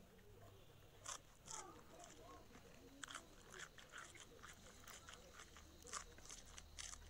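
Close-up chewing of a mouthful of pork, with irregular wet mouth clicks and smacks, sparse at first and coming thick and fast from about three seconds in.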